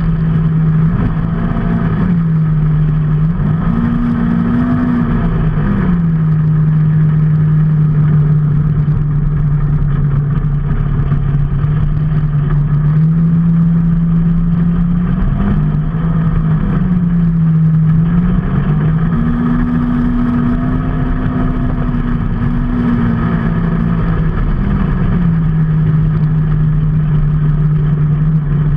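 Vehicle engine running under way with a steady drone. Its pitch rises and falls back a few times as the speed changes.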